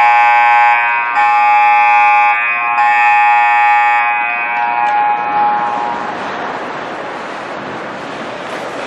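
Ice rink's electric horn blaring for about four seconds with two short dips, then ringing away through the arena over the next couple of seconds.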